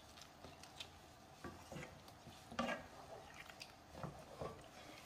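Wooden spatula stirring a liquid chicken stew in coconut milk in a nonstick pan: faint, scattered scrapes and soft knocks against the pan, with a little sloshing.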